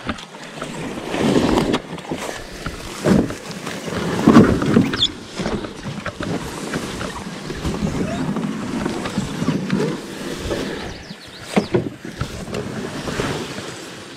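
Loaded canoe being dragged by hand through wet marsh grass and mud, its hull scraping and rustling through the grass in uneven surges with a few sharper knocks.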